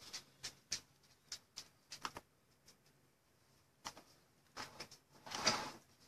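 Faint, scattered light clicks and taps of someone typing on a device while posting a link, irregular at a few per second, with a slightly longer scrape about five and a half seconds in.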